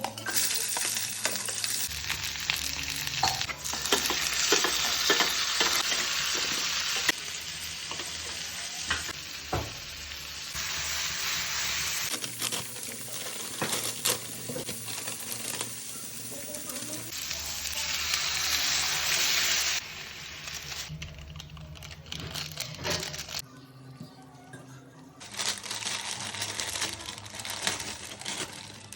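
Vegetables and noodles sizzling in a hot oiled pan while being stirred and tossed, with scattered clicks and scrapes of a utensil against the pan. The sizzle comes in several loud stretches that start and stop abruptly, with quieter frying in between.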